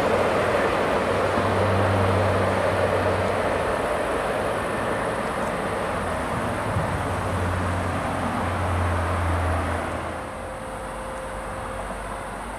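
Freight train of covered wagons rolling away on the rails, a steady rumble of wheels that slowly fades as the train goes into the tunnel. About ten seconds in the sound drops to a quieter steady background.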